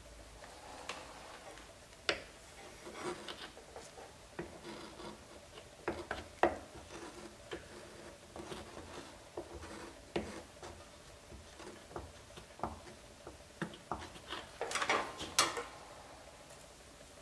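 A hot plastic-welding iron's tip scraping and tapping against the plastic headlight housing while filler is worked into the crack around the broken mounting tab: irregular short scrapes and light clicks, with a busier burst of scraping near the end.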